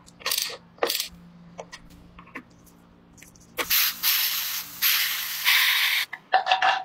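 Compressed air hissing into a scooter tyre through an air-chuck inflator with a pressure gauge. The hiss starts about halfway in, lasts about two and a half seconds and breaks off briefly once. Before it come a few sharp metal clicks of a socket on the wheel nuts.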